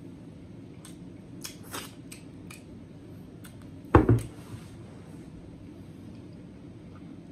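Plastic screw cap on a bottled drink being twisted open, giving a series of short light clicks, then one heavier knock about four seconds in.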